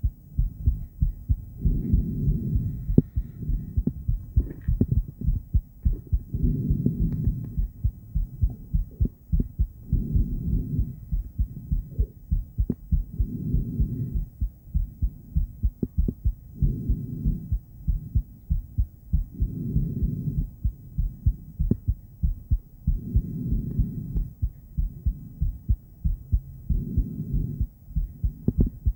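A woman's heartbeat picked up by a handheld ultrasonic Doppler device: rhythmic low whooshing pulses that swell louder about every three and a half seconds.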